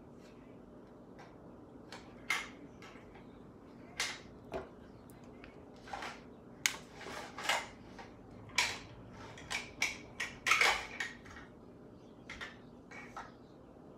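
Light, irregular clicks and clatter of makeup tools and containers being handled and set down, about a dozen small taps, most of them in the middle stretch.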